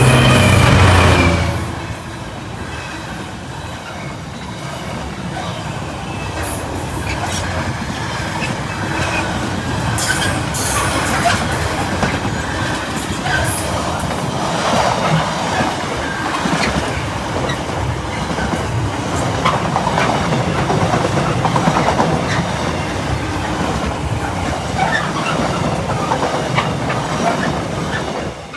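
Freight train passing: the locomotive's engine is loudest in the first second or so, then a long string of wagons clatters steadily over the rail joints with occasional high wheel squeal, until the sound cuts off suddenly near the end.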